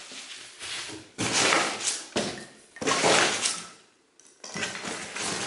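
Paper and plastic packaging rustling and crinkling as it is handled and unwrapped, in several bursts with a brief pause about four seconds in.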